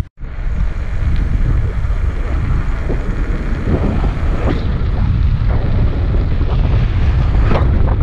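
Wind buffeting the microphone while riding a bicycle along a paved road, a steady low rumble with tyre noise and a few light rattles. The sound drops out for a moment at the very start.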